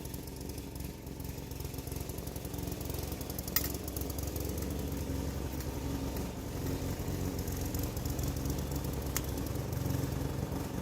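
A motor-driven garden machine running steadily with an even hum, with two short sharp clicks, one about a third of the way in and one near the end.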